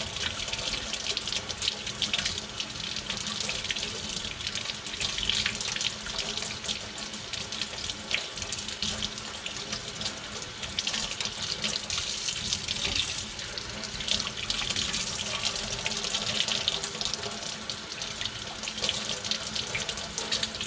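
Kitchen faucet running steadily into a stainless steel sink, the stream splashing unevenly as fingers rinse small boiled fish bones under it.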